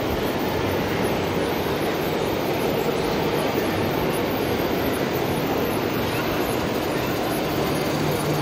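Steady, even background roar of a busy exhibition hall, with no distinct engine note or knocks standing out.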